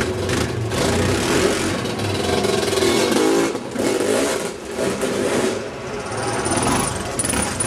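Off-road engines revving under load: a quad bike and then a dirt bike climbing entrance steps and riding through a doorway. The revs rise and fall.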